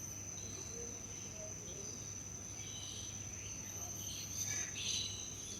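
Steady high-pitched drone of insects, with scattered chirping calls over it, the loudest a little over four seconds in.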